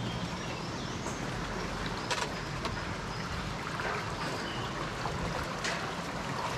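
Steady rush of river water with wind noise. Two faint light splashes or knocks come in, one about two seconds in and one near the end, along with a few faint short high chirps.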